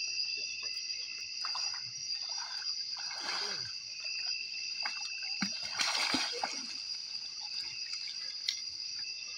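Steady night chorus of crickets with several high, even tones. Two splashy washes of water rise over it, about three seconds and six seconds in.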